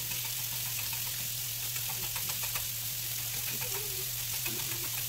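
Chicken frying on a stovetop griddle with a steady sizzle, and faint clicks of a whisk stirring cornstarch slurry into sauce in a saucepan.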